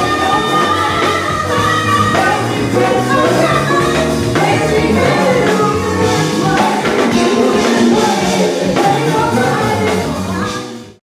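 Band music with singing voices, fading out near the end.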